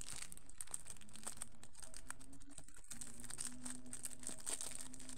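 Clear plastic packaging of a rolled diamond-painting kit crinkling as it is handled and turned over in the hands, in many short, irregular crackles.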